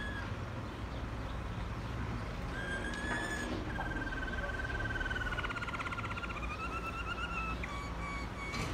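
Waterslager (Malinois) canary singing. A held whistled note comes first, then a long, slightly falling note that breaks into a fast rolling warble, and near the end shorter higher notes and trills, over a steady low background rumble.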